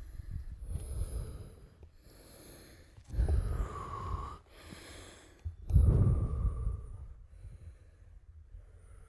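A person breathing hard while hiking up a steep slope, with two loud, heavy breaths about three and six seconds in.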